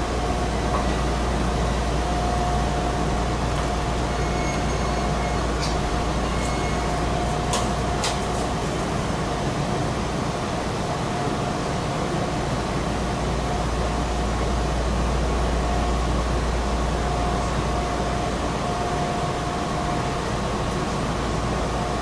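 Steady noise of a Meitetsu 6000 series electric train heard from behind the driver's cab, a constant rumble with a faint steady hum, and a few light clicks a few seconds in.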